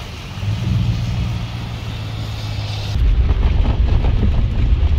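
Car driving through heavy rain: a steady hiss of rain and wet road over a low engine hum. About three seconds in it changes abruptly to a louder, deeper rumble with wind on the microphone.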